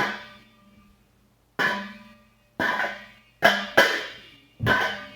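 Five separate percussive hits, each sharp at the start and dying away over about a second, the second half of them coming closer together.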